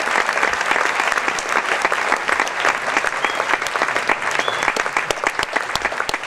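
A large crowd applauding, the clapping thinning out toward the end so that single claps stand out.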